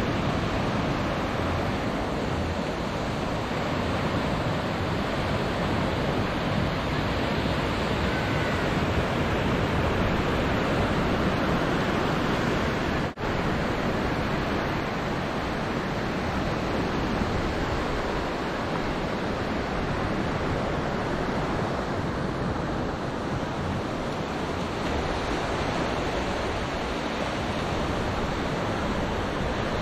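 Small waves breaking and washing up on a sandy beach, a steady surf hiss with wind on the microphone. The sound dips out for an instant about halfway through.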